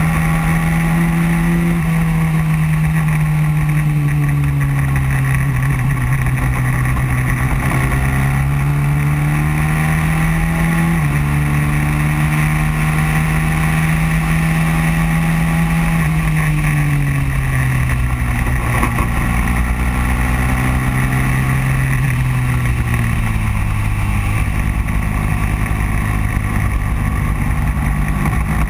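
Racing kart engine at speed on track, heard from on board. Its pitch climbs and sags as the kart speeds up and slows through the corners, with a few sudden jumps in pitch.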